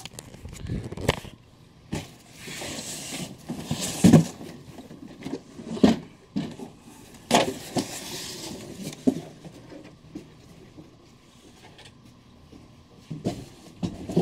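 Cardboard shipping carton and its contents being handled: irregular rustling, scraping and knocks as boxed statues are pulled out and set down, quieter for a few seconds near the end before a couple of final knocks.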